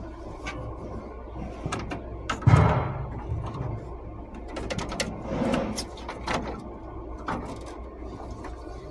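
Scattered clicks and knocks, with a heavy thump about two and a half seconds in, over a steady low hum.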